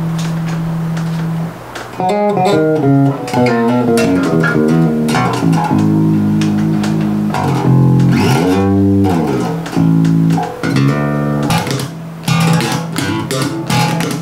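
Five-string Elegee Alab Series jazz bass played through a small practice amp: a held low note, then after a short pause a run of plucked notes, with one note slid up and back down about eight seconds in.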